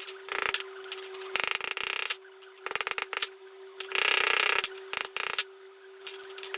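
Irregular scraping strokes by hand on a metal taillight bezel, each lasting about half a second to a second with short pauses between, over a steady faint hum.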